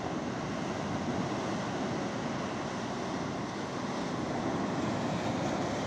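Sea surf washing against a rocky shore, a steady rush of noise with no single breaking wave standing out.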